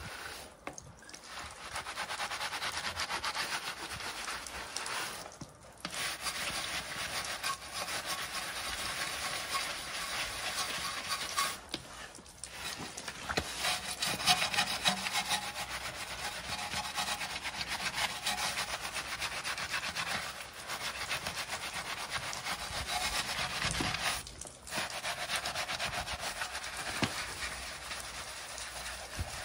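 Bristle wheel brush scrubbing the soapy alloy wheel of a Porsche 986 Boxster in quick back-and-forth strokes, with brief breaks a few times.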